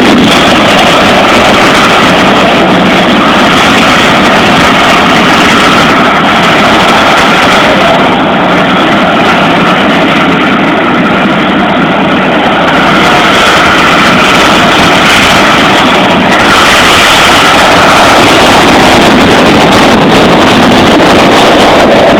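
Motorcycle engines running very loud and without a break, so loud that the phone microphone overloads into a steady, distorted din.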